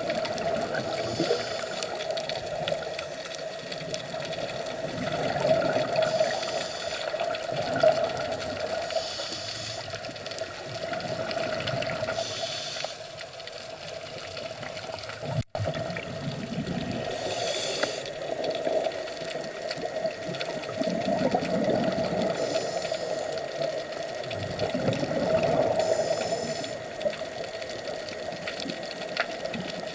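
Underwater sound picked up through an action camera's waterproof housing: a continuous muffled water wash with a steady low hum, and bursts of hiss every few seconds. It cuts out for an instant about halfway through.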